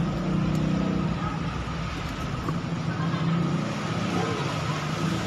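A motor vehicle engine running steadily, over the even rushing noise of floodwater flowing down a street.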